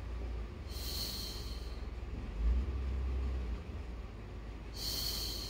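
Two sharp, breathy exhalations about four seconds apart, as she breathes out on each lift of the legs. A low rumble sits steadily beneath them.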